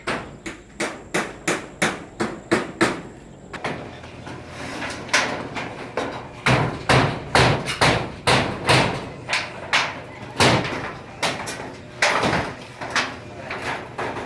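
Repeated hammer blows: a steady run of about three strikes a second, then more irregular, heavier knocks after a few seconds.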